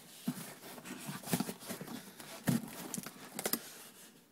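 Cardboard shipping box holding steel body-grip traps being handled: irregular hollow knocks and rustles, about one a second.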